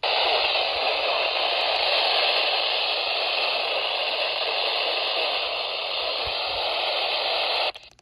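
Steady static hiss from a weather radio receiver, starting abruptly and cutting off suddenly near the end.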